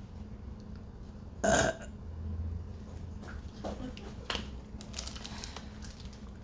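A person burping once, short and loud, about a second and a half in, followed by a few faint clicks and rustles.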